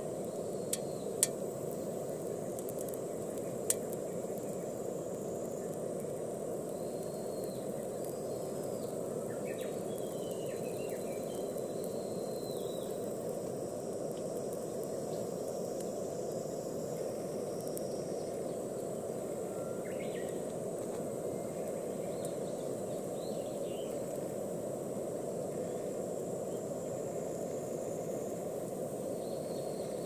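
Steady outdoor rushing ambience with three sharp clicks in the first few seconds and scattered short bird chirps.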